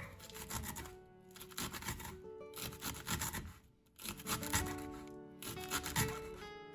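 Gentle classical guitar music playing, with soft rubbing and scratching handling sounds over it.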